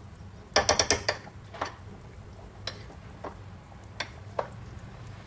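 Sharp clicks and taps of kitchen utensils and a container being handled while palm sugar is got out for the soup: a quick run of about six clicks near the start, then single clicks about once a second.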